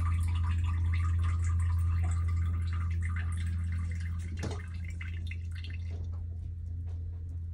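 Liquid dripping and trickling into a toilet bowl over a steady low hum. The dripping thins out about halfway through, after one brief sharp sound.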